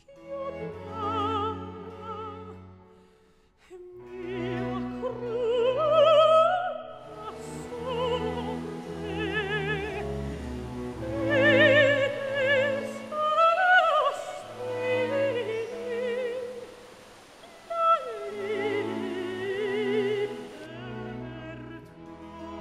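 Classical music: an operatic voice singing with wide vibrato over orchestral accompaniment, with low sustained notes underneath.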